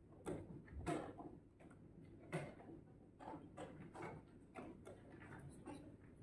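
Faint, scattered clicks and knocks of chess pieces and clocks in a tournament hall, irregularly spaced, the sharpest three in the first two and a half seconds, over a low murmur of room noise.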